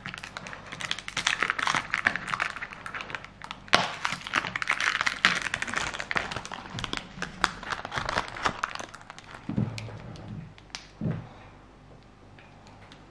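A thin plastic film lid is peeled off a plastic overnight-oats pot, crinkling and crackling rapidly for most of the time. Near the end the crinkling dies down and there are two soft, low thumps.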